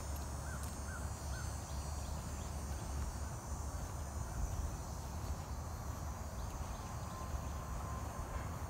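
Outdoor ambience: a steady low rumble with faint high insect buzzing, and three quick bird chirps in a row about half a second in.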